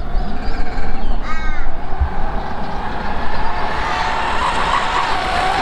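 A crow cawing, one harsh call about a second in, over steady background noise with low rumbling.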